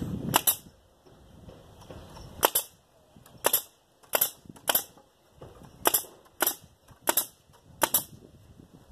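Pneumatic nail gun firing about eleven nails into wooden fence boards: sharp single shots and quick pairs, irregularly spaced half a second to a second apart.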